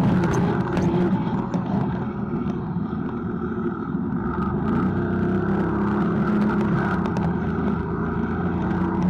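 Snowmobile engine running steadily, its pitch holding even.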